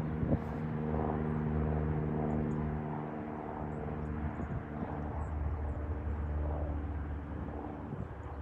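A motor running with a steady drone, its low hum growing stronger about halfway through, with one short knock right at the start.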